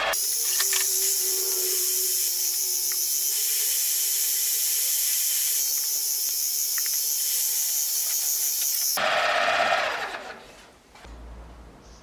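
Drill milling machine boring a hole in a steel gear shaft with a twist drill: a steady high-pitched whir with a low hum that sags slightly under the cut. It cuts off suddenly about nine seconds in.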